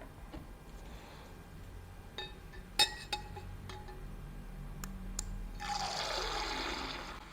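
A few light clicks and knocks of a cup being handled, the loudest a sharp click near the middle, then liquid pouring into a cup for about a second and a half near the end.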